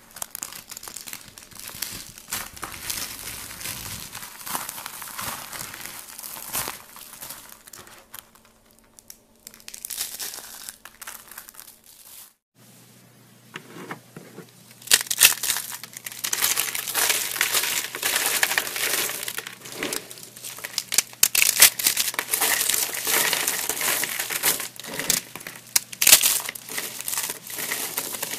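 Thin, dry curls and shavings of bar soap being crushed and crumbled by hand, a dense crisp crackling and crunching. There is a short lull about twelve seconds in, after which the crackling is louder and denser.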